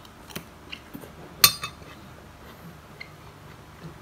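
Cutlery clinking against a plate while eating: several light clicks, with one much louder clink about one and a half seconds in.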